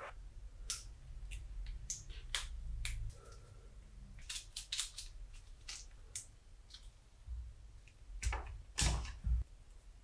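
Sharp, irregular clicks and cracks of a white plastic screw terminal block being broken apart by hand to free its brass connector inserts, the loudest snaps near the end.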